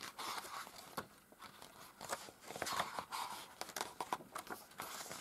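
Pages of an oversized hardcover book being flipped one after another: faint, irregular paper rustling and flapping with small soft taps.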